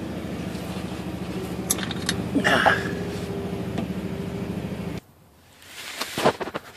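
Air compressor running steadily, supplying air for an air hammer, then stopping abruptly about five seconds in; a few light knocks follow.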